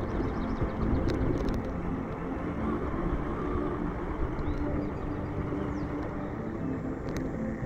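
Electric motor and drivetrain of an Axial Ryft RC rock bouncer whirring as it is driven on sand, the pitch shifting with throttle, over a steady rumble and a few sharp clicks.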